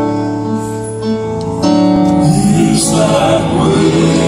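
Grand piano playing held chords, joined about two seconds in by a male gospel quartet singing in harmony.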